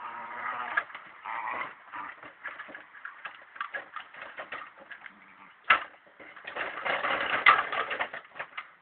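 A plastic Bobby-Car ride-on toy clattering and knocking as a dog plays with it, with irregular knocks, a sharp bang a little past halfway, and a louder stretch of rattling near the end. Low cooing or grumbling tones can be heard near the start.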